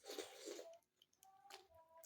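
Close-up eating sounds: wet chewing with a short noisy burst in the first second and a smaller one about a second and a half in.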